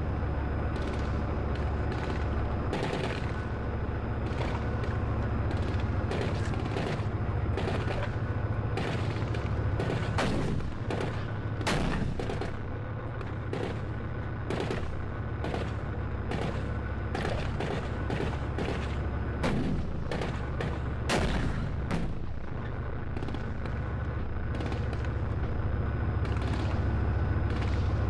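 Gunfire on a tank range: many sharp cracks at irregular intervals, the loudest about twelve and twenty-one seconds in, over the steady low rumble of a Leopard 1 tank's engine running.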